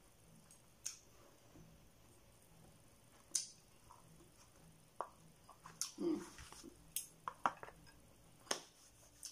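Faint mouth sounds of someone chewing fried tofu: a scattering of sharp, wet smacking clicks, about seven in all, with a softer mushy sound about six seconds in.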